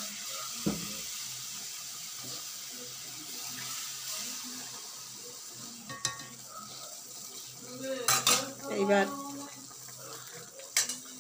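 Metal spatula scraping and knocking against an iron kadai as a watery curry is stirred, over a steady hiss of the freshly added water simmering. A few sharp clatters come in the second half.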